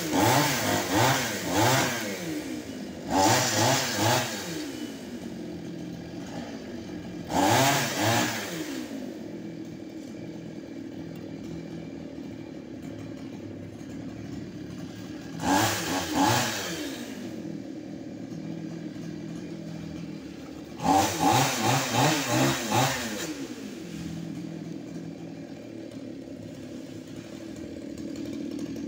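Two-stroke chainsaw idling steadily and revved up in short bursts about five times, each burst rising and falling in pitch.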